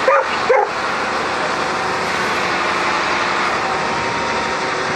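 Dodge Ram pickup's engine running at steady revs while its rear tyres spin in soft mud, throwing dirt: the truck is stuck and not getting traction.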